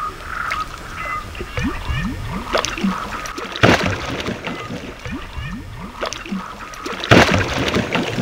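Water splashing and gurgling as a carp thrashes at the surface of the lake, with two loud splashes, one about three and a half seconds in and one about seven seconds in.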